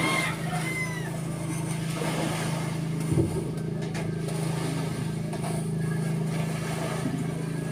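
A steady low mechanical hum, with a rooster crowing faintly near the start.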